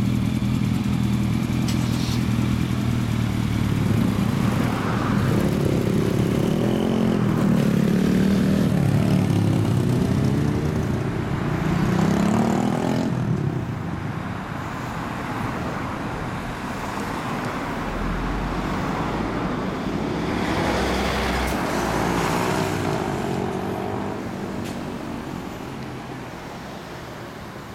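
Motorcycle engines, including a 2005 Yamaha YZF-R1's inline-four through a Bright Logic aftermarket exhaust, idle steadily and then pull away, revving up through the gears. Later there is street traffic with another engine accelerating, and the sound fades away near the end.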